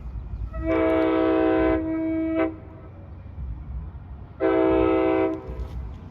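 Multi-chime locomotive air horn sounding one long blast, then a shorter one about two seconds later, over the low rumble of a train.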